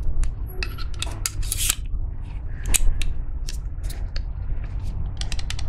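Gerber pack saw being handled with its molded plastic sheath: scattered sharp clicks and scrapes as the toothed blade is worked into the sheath, ending in a quick run of clicks. A steady low rumble lies underneath.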